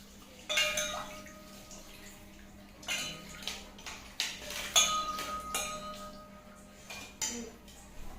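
Metal dishes and a spoon clinking several times, the louder strikes leaving a ringing tone that hangs for a second or so.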